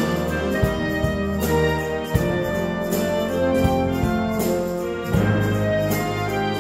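Wind orchestra playing a slow arrangement: saxophones and low brass (tubas, euphonium) holding chords, with percussion strokes keeping a steady beat.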